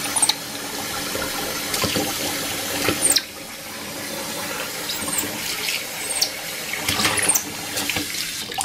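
Kitchen tap running into a stainless steel sink while a baby white-faced capuchin moves and splashes in the water. Several short high-pitched squeaks come through over the running water.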